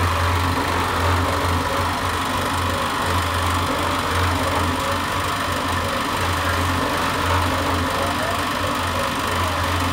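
Small drum mortar mixer running steadily, its motor driving the drum round as it turns over a batch of wet mortar. A low hum wavers in and out throughout.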